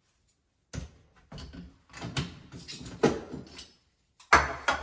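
Wall-mounted metal towel bar being yanked and shaken, clanking and rattling in its wall brackets: a sharp knock, a run of clattering knocks, and a loud bang near the end.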